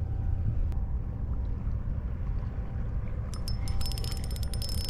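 Wind rumbling on the microphone. A little over three seconds in, a spinning reel is wound, giving a fast run of clicks with a thin whine.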